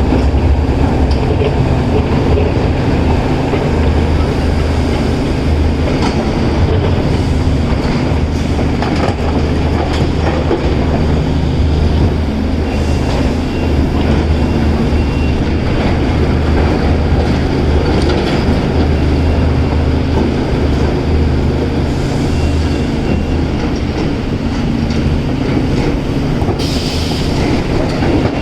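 Heavy diesel earthmoving machinery running steadily under load: a loud, unbroken low rumble with a constant drone.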